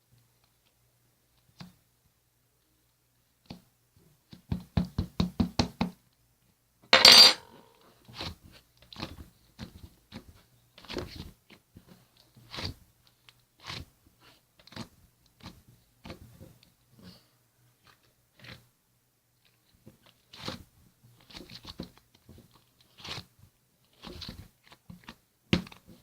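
Crunchy food being bitten and chewed close to the microphone, in separate, irregular crunches. A quick run of about ten taps comes about five seconds in, and a loud half-second crackle about seven seconds in.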